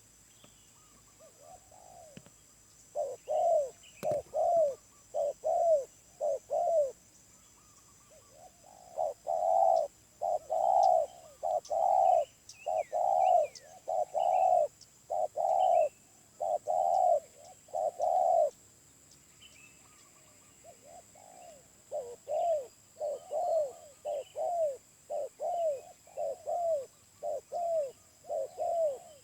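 Spotted dove cooing: three runs of evenly repeated low coos, separated by short pauses.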